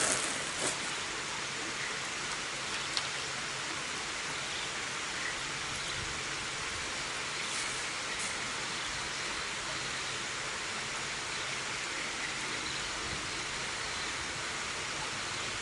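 Steady rushing hiss of water pouring through a dam, even and unbroken.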